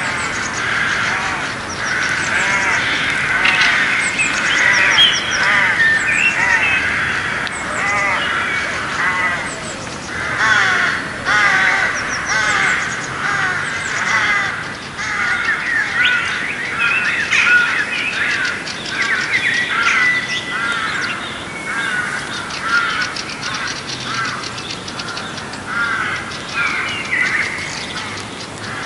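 A dense chorus of many birds calling and chirping over one another without a break: short, arching chirps and chatter from a flock.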